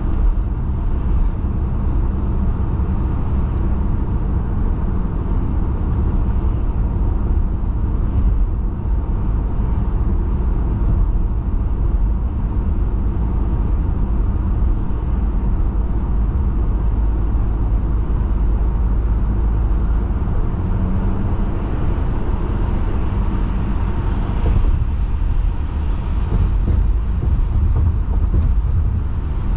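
Car driving at speed: a steady low rumble of road, tyre and engine noise.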